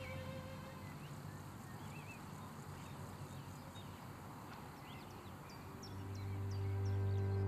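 Quiet outdoor ambience with faint, scattered bird chirps. About six seconds in, a low held drone from the film score swells in and grows louder.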